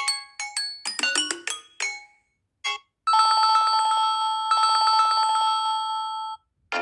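Samsung Galaxy A71 stock ringtones: quick, bright melody notes that end about two seconds in, then a short blip. From about three seconds, a fast-pulsing ring tone holds two steady pitches and then cuts off, just before the next melody starts near the end.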